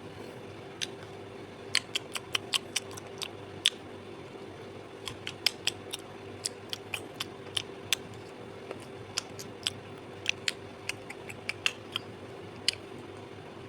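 Plastic snack wrappers being opened: dozens of short, sharp crackles and clicks, irregular and in small clusters, as individually packed mini chocolate croissants are unwrapped.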